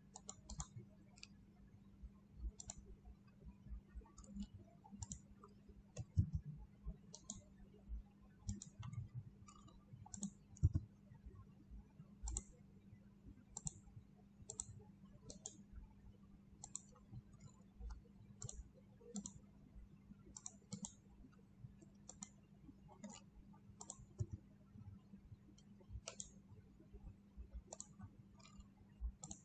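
Computer mouse buttons clicking, single clicks and quick pairs at irregular intervals, over a faint steady low hum.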